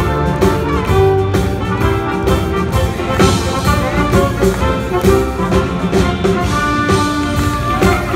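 Band music with brass instruments playing, a mix of held notes over a dense accompaniment.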